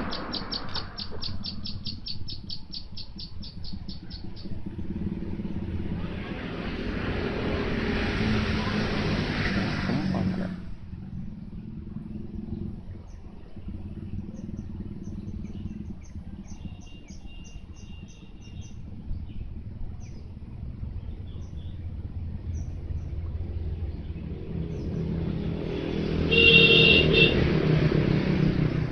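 Motor vehicles passing twice, each swelling up and fading away, over a steady low rumble, with birds chirping in fast high trills.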